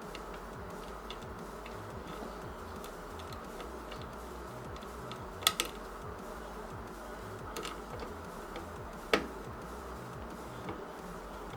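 Small metallic clicks and ticks of a screwdriver turning motherboard screws into a PC case. Two sharper clicks come about five and a half and nine seconds in, over a steady faint hiss.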